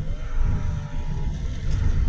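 A car driving, heard from inside the cabin: a low, uneven rumble of road and engine noise.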